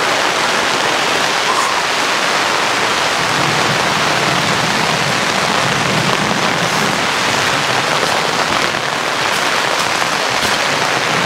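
Heavy rain falling steadily, heard from beneath a fabric awning.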